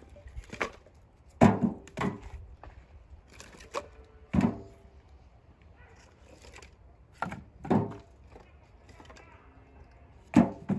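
Firewood logs knocking against each other as they are handled and stacked: about eight hollow wooden knocks at irregular intervals, some in pairs half a second apart.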